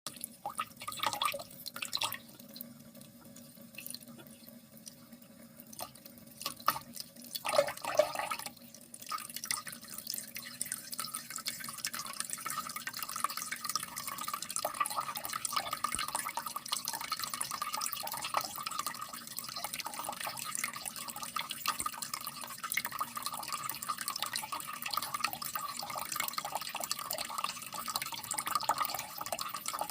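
Water splashing and dripping, scattered at first, then from about nine seconds a steady, busy trickling and splashing.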